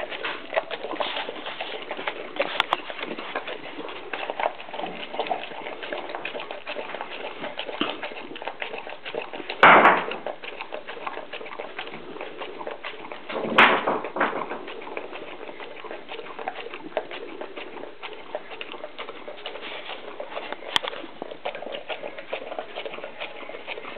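St. Bernard eating moistened food from a plastic bowl: a steady run of small chewing, smacking and muzzle-in-bowl noises, with two louder short bursts about ten and fourteen seconds in.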